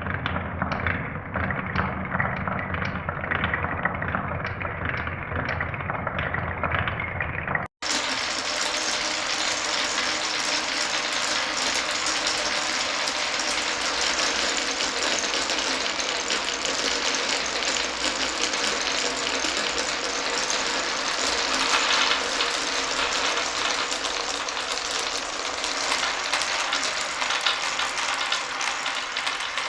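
Glass marbles rolling and clattering along a wooden and plastic marble run. For the first eight seconds it is a lower rumble with a faint tick about twice a second; after an abrupt cut it becomes a brighter, dense rattle of many small clicks.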